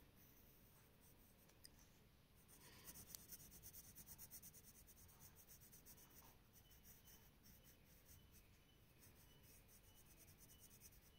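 Faint scratching of a dark pencil shading on paper in quick, rhythmic back-and-forth strokes, loudest from about two seconds in for a few seconds, then lighter.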